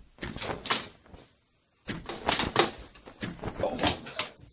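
A quick run of short knocks, clacks and rustles in two bursts, with a brief silence about a second in.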